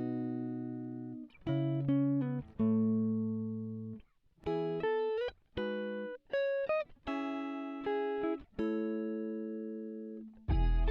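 Background music: a plucked guitar playing slow notes and chords, each ringing out and fading, with short breaks between. A fuller part with bass comes in near the end.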